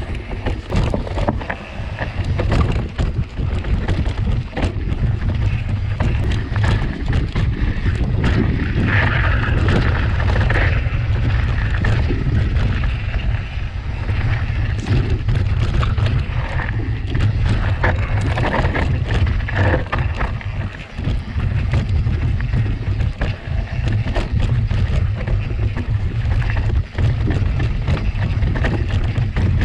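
Mountain bike descending a rough, rocky trail: constant clattering and knocking of tyres, chain and frame over the ground, under a heavy rumble of wind on the camera's microphone.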